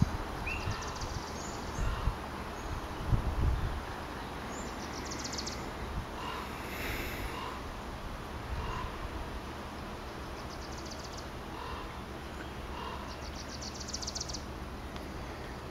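Outdoor ambience: a steady background hiss, with high-pitched chirps and short rapid trills from small wild animals several times. There are a few low bumps in the first few seconds.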